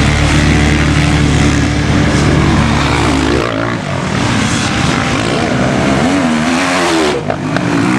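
Several motocross bikes running hard on a dirt track, the engine pitch repeatedly rising and falling as the riders open and close the throttle. The sound changes abruptly about three and a half seconds in.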